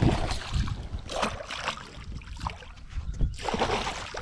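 A hooked largemouth bass splashing at the water's surface in a run of irregular splashes. Wind rumbles on the microphone underneath.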